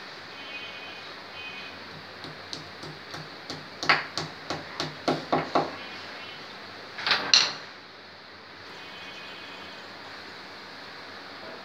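Hammer tapping at the wall: a run of about a dozen light strikes, roughly three a second, then a single louder clattering knock about seven seconds in.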